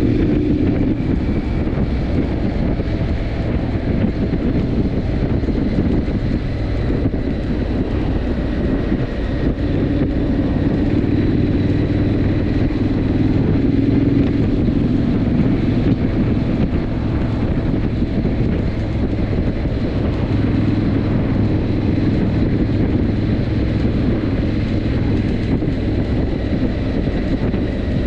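Triumph Scrambler 900's parallel-twin engine running steadily at expressway cruising speed, with wind and road noise.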